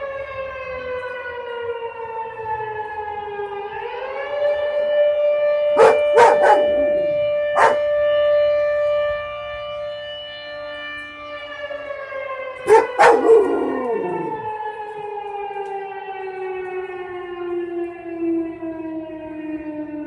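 Dalmatian barking at a mechanical air raid siren during its monthly fire siren test. The siren falls in pitch, winds back up about four seconds in, holds a steady wail, then slowly winds down. The dog barks in two short bursts of about three barks each, in the middle and about two-thirds through.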